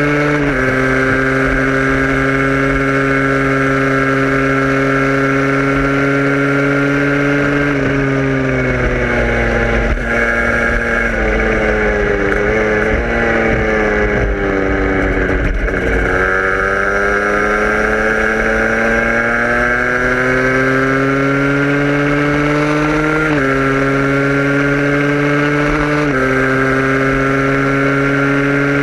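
A vehicle's engine running under way. It holds a steady pitch, sinks in pitch for several seconds midway as the vehicle slows, then climbs again. Near the end there are two sudden drops in pitch, at upshifts.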